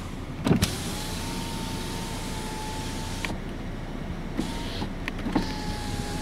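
Power window motor in a 2011 Volkswagen Passat's door whining steadily as the glass lowers. It stops with a click about three seconds in and starts again about five seconds in. A couple of sharp knocks come just before the first run.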